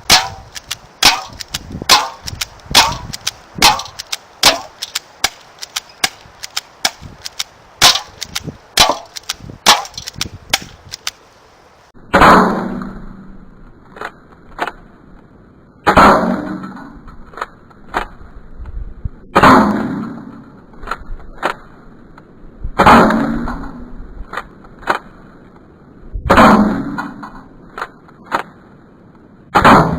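Stinger P311 airsoft pistol shots fired in quick succession, about two sharp cracks a second, for roughly twelve seconds. Then the shooting is heard slowed down in slow motion: each shot becomes a long, deep, smeared boom, about one every three and a half seconds.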